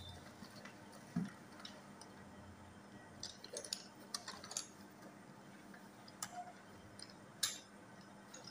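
Faint, scattered clicks, taps and rustles of items being handled inside a school backpack as it is rummaged through, with a cluster of small knocks midway and the sharpest tap about seven and a half seconds in.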